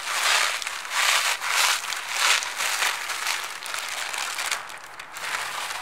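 Plastic bag crinkling and rustling as the Russisch Brot biscuits inside are crushed by hand, in a run of uneven strokes that grow fainter after about three and a half seconds.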